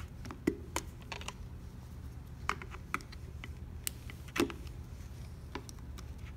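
Irregular plastic clicks and snaps as a flathead screwdriver pries the vent cap strips off the cells of a flooded lead-acid car battery, the loudest snap about four and a half seconds in. A steady low hum runs underneath.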